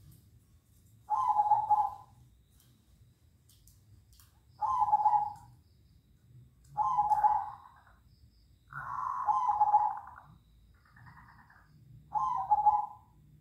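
Zebra doves (perkutut) cooing back and forth: five short cooing phrases every two seconds or so, with a longer phrase near the middle.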